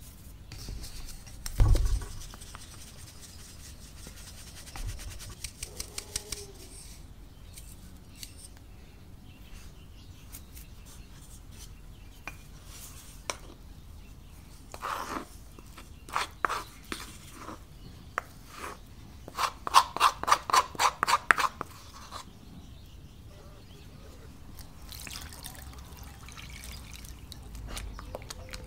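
Hand bread-making at a wooden bowl. A dull thump comes near the start, then flour is rubbed through a metal sieve with quick light ticks. Later come clatters and a fast run of sharp clicks as sourdough starter and water go into the flour, and near the end a soft rubbing of hands mixing wet dough.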